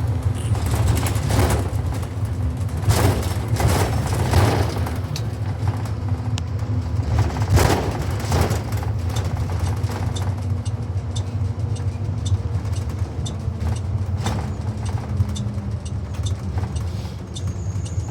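Inside a moving Blue Bird Vision propane school bus: a steady low engine and road rumble, with bursts of rattling and knocking from the body, heaviest about three to four seconds in and again about eight seconds in.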